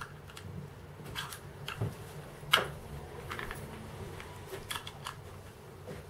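Scattered small clicks and scrapes of a small screwdriver working at the metal 510 connector of a VooPoo Drag 2 box mod as it is pried loose. The sharpest click comes about two and a half seconds in.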